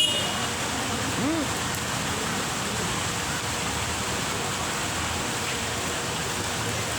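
Rain falling steadily as an even hiss, with one short rising-and-falling tone about a second in.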